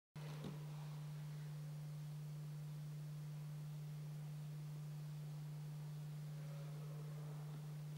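Steady low electrical hum, a single unchanging tone, switching on abruptly a split second in over faint background hiss.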